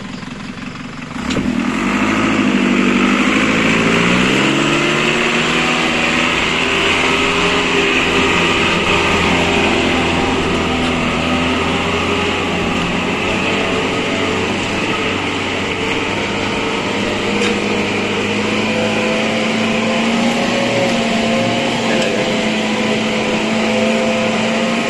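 Small box truck's engine running hard under load as it pulls up a slippery dirt track, starting loud about a second in. Its pitch rises over the next few seconds and then holds high, creeping slightly higher near the end.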